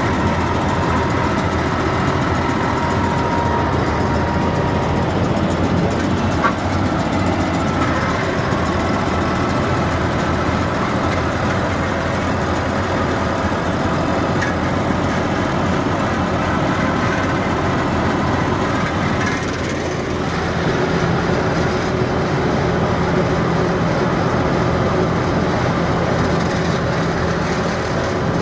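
Steady engine and road noise of a vehicle travelling on the road, with a brief slight dip about two-thirds of the way through.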